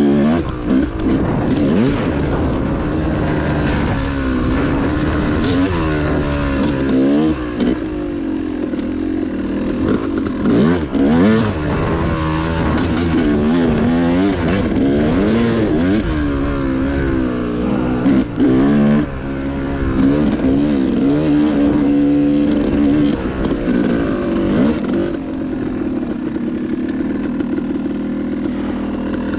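Single-cylinder two-stroke engine of a Yamaha YZ250X dirt bike, revving up and down over and over as it is ridden, with a few seconds at a steady held pitch about two-thirds of the way through. Scattered sharp knocks and clatter break in now and then.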